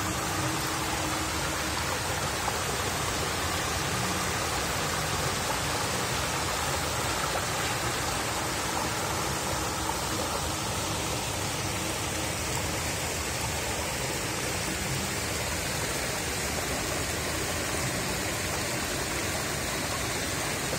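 Shallow stream water spilling over low stone ledges and running across a pebble bed: a steady, even rush of flowing water.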